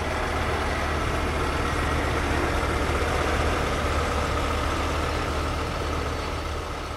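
Peterbilt 389 semi-truck's diesel engine idling with a steady low hum, fading out near the end.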